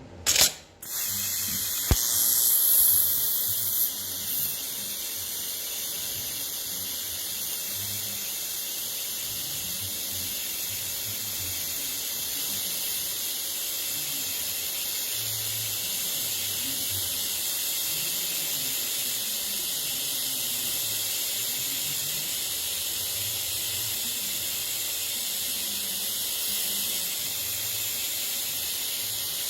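TIG welding torch arc: a couple of sharp bursts near the start as the arc is struck, then a steady high-pitched hiss as it burns.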